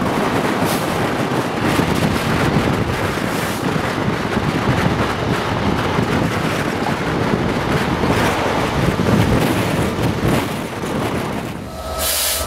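Heavy wind buffeting the microphone from a moving train's open window, over the steady rumble of the train running along the track. The sound dips and gives way to a short burst of noise near the end.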